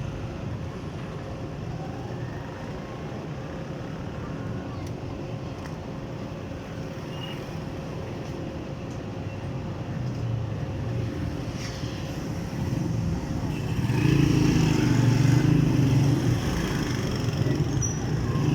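Motor vehicle and road traffic noise, steady at first and growing louder about fourteen seconds in.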